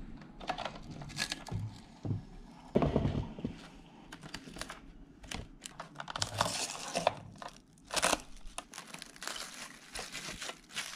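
Plastic cling film crinkling and crackling in irregular bursts as it is pulled from an acrylic wrap dispenser, cut with the slide cutter and pressed over a bowl.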